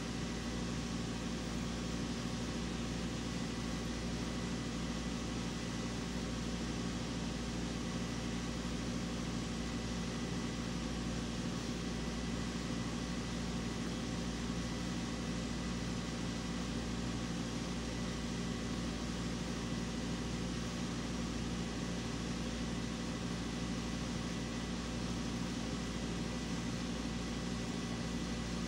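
Steady machine hum with a faint constant high whine and an even hiss, unchanging throughout.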